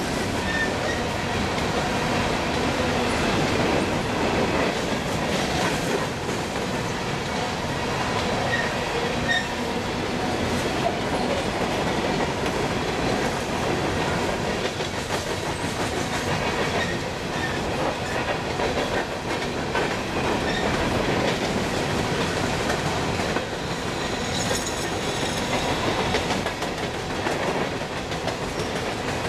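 Coal hopper cars of a freight train rolling past: steel wheels on the rails give a steady rumble with a continuous clickety-clack of wheels over rail joints.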